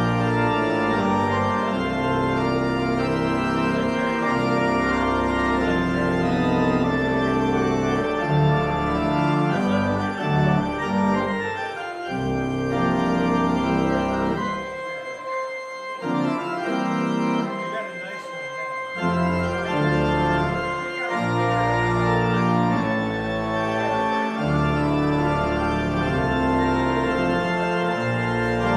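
Church organ playing a hymn-tune postlude in full sustained chords over a deep bass. Between about 14 and 19 seconds in, the bass drops out and the playing thins to a quieter, lighter passage, then the full sound returns.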